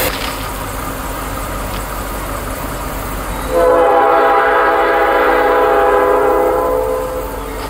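Locomotive air horn on an approaching Norfolk Southern freight led by a GE Dash 8-40C, sounding one long chord of about three and a half seconds beginning a little past a third of the way in, over a low steady rumble.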